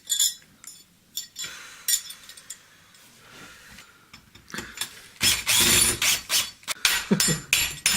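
Scattered mechanical clicks and rattles, quiet through the middle, then a louder, denser run of clicking and rattling over the last three seconds.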